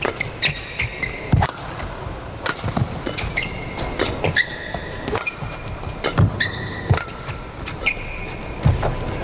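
Badminton rally: sharp racket strikes on the shuttlecock and several short, high squeaks of players' shoes on the court mat.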